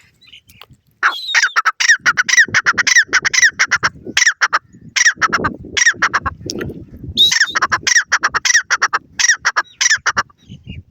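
Grey francolin (teetar) calling: a rapid series of loud, harsh, ringing notes starting about a second in, a brief pause midway, then a second series that stops near the end.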